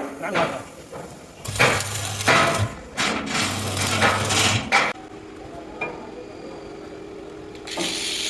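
Irregular knocking and clanking of steel being worked on, with a low hum under two of the louder stretches, then quieter after about five seconds, leaving a steady low drone.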